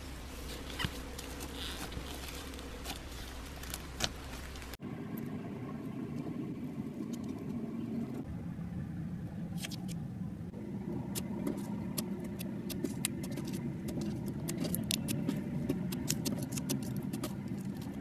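Hands working slime: first red slime studded with foam beads, then, after a cut about five seconds in, glossy rainbow slime being pressed and stretched, giving many small sharp clicks and pops that come thicker toward the end.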